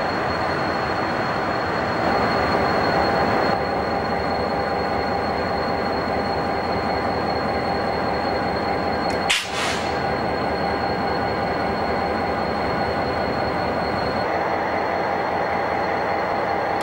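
Diesel locomotives idling in a rail yard: a steady rumble with a constant high whine, broken briefly about nine seconds in.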